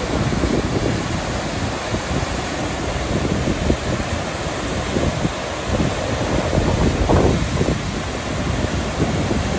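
Narmada River in flood, its brown water rushing and churning over rock rapids in a loud, steady rush, with gusts of wind buffeting the microphone.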